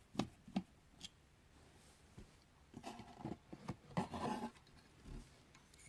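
A few light clicks and taps from handling loudspeaker parts, then two brief faint pitched murmurs.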